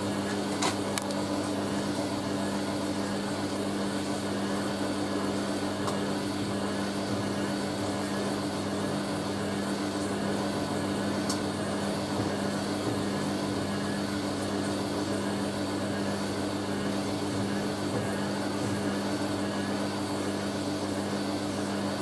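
Hoover A3060 Electronic 1100 washing machine running with a steady, even mechanical hum that does not rise or fall.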